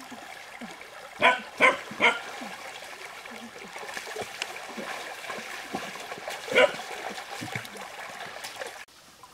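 Shallow stream water trickling and splashing as people wade through it. Three short yelping animal calls come in quick succession about a second in, and one more follows later.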